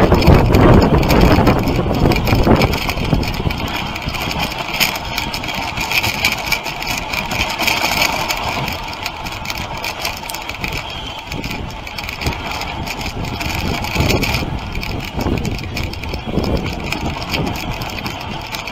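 Dog sled running over a packed snow trail: runners scraping and hissing on the snow, the frame knocking and rattling over bumps, with wind on the microphone. It is loudest in the first few seconds.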